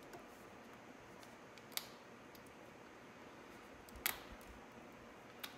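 A dental pick clicking against metal as it pries a little cap out of a bolt hole on a motorcycle's crash-bar mount: three short, sharp clicks, the loudest about four seconds in, over faint hiss.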